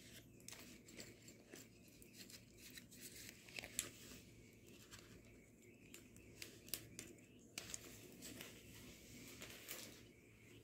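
Green-cheeked conure chewing and tugging at a plastic zipper on a cloth garment: faint, irregular clicks and crunches, with a sharper click a little under four seconds in.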